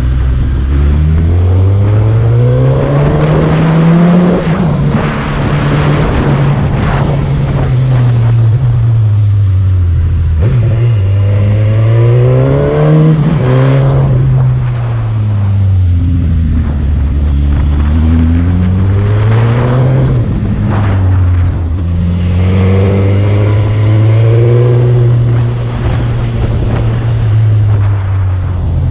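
Motorcycle engine on the throttle up a steep, winding climb, its pitch rising under acceleration and dropping back again and again as the rider works through a series of tight curves.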